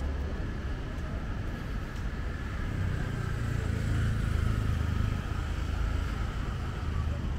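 City street ambience with a low motor-vehicle engine rumble that swells about halfway through as a motor scooter passes on the road alongside.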